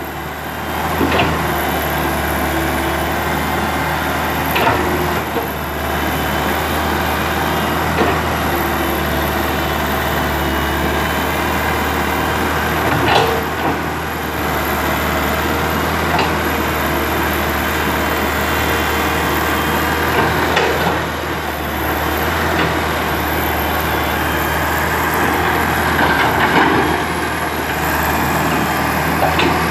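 Komatsu PC120 hydraulic excavator's diesel engine running steadily under digging load, with short clanks and scrapes of the bucket in the soil every few seconds.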